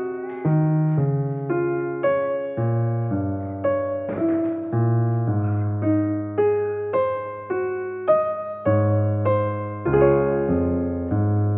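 Background piano music: a steady run of single notes and chords, each struck and then fading, about two a second.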